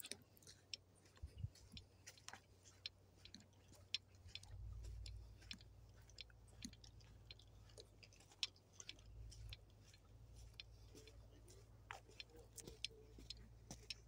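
Faint, irregular crunching footsteps on a gritty dirt trail. A low rumble comes in about four seconds in and stays.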